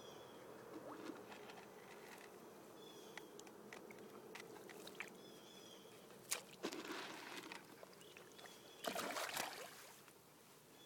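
Husky splashing in shallow pond water as it paws and lunges after catfish: a brief splash about two-thirds through and a longer bout of splashing near the end. Short high chirps sound faintly between them.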